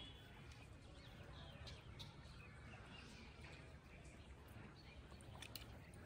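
Near silence: faint outdoor ambience with a steady low rumble and a few faint bird chirps.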